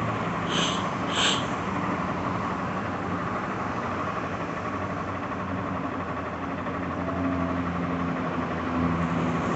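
Motor vehicle engine running steadily, with two brief high chirps about half a second and a second in.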